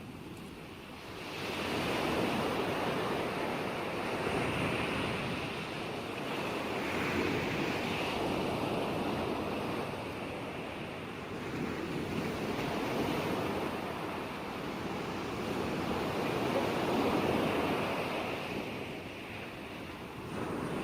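Ocean surf: a continuous rush of waves washing in, swelling and easing every few seconds.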